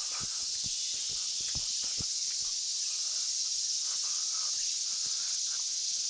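A chorus of several kinds of cicadas calling, the males' loud mating call, as one steady high-pitched drone. Footsteps on asphalt sound under it, most of them in the first two or three seconds.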